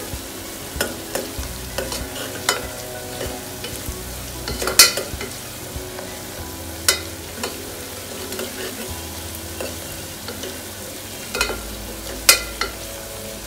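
Onion and ginger-garlic paste sizzling in hot oil as they are stirred, frying off the paste's raw taste. A steady sizzle runs under sharp knocks and scrapes of the stirring utensil against the pan, the loudest about five seconds in.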